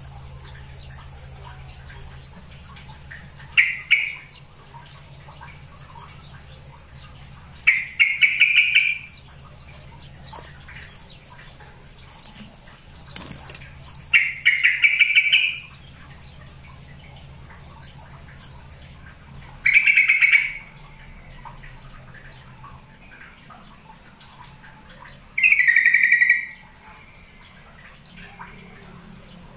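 Yellow-vented bulbul (trucukan) song: five short, bubbly, liquid phrases, one every five or six seconds.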